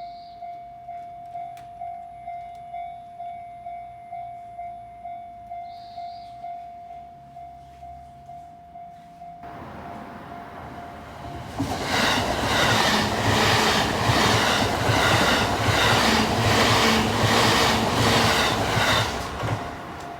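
Japanese level-crossing warning bell ringing steadily, about two dings a second. About ten seconds in, a train comes up and passes loudly with a rhythmic clatter of wheels over the rails, drowning out the bell until it has gone by.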